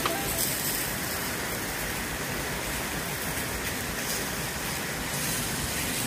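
Steady, even hiss of rushing water, unbroken and without any rhythm.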